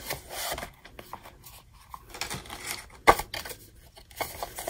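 Handling noise: a B6 slim paper notebook being slid out of a soft leather folio cover and handled, with soft rustling and scuffing and one sharp tap about three seconds in.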